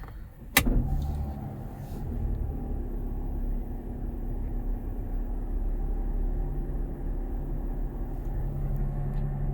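A sharp click, then the Chrysler Pacifica Hybrid's 3.6-litre V6 petrol engine starts and runs steadily, heard from inside the cabin. The engine has been triggered automatically by popping the hood while the van was running on electric power.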